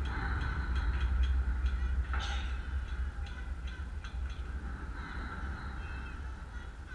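Wind rumbling on the microphone, with faint distant shouts and chatter from players and spectators at a youth baseball game; one brief shout stands out about two seconds in.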